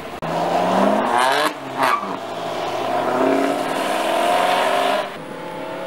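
Sports car accelerating hard past on the road, its engine revving up, shifting gear twice in quick succession about a second and a half in, then pulling steadily before easing off near the end.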